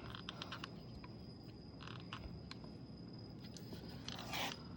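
Light clicks and handling noises of small carburetor parts as the main jet with its O-ring is worked into place by hand, ending in a short scraping rush about four seconds in.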